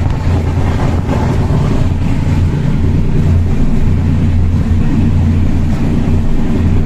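Steady loud rumble of a moving Indian Railways sleeper-class coach, wheels running on the rails, heard from inside the carriage with its windows open.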